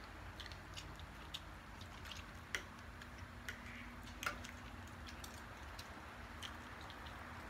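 Quiet eating at a table: scattered small clicks and smacks of chewing and of fingers working food on plates, with two sharper ticks about two and a half and four seconds in.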